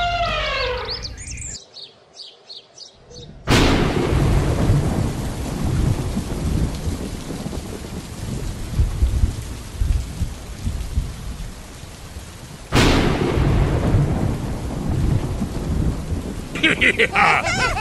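Thunderstorm: a sudden thunderclap a few seconds in, then steady heavy rain, and a second thunderclap about thirteen seconds in, rain continuing after it.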